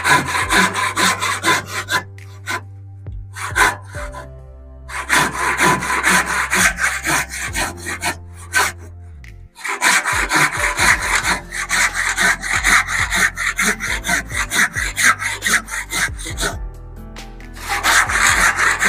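Haston hand saw with a carbon-steel blade cutting through kulim hardwood in fast back-and-forth strokes, in several runs broken by short pauses. The owner takes the sound as the sign of a very sharp blade.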